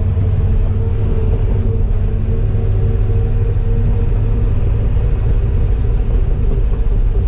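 Diesel engine of a piece of Cat heavy equipment running steadily under load: a constant low rumble with a steady higher tone over it.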